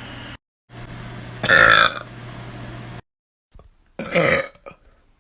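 A person belching loudly twice, each burp about half a second long and the two some two and a half seconds apart. A steady low hum runs behind the first.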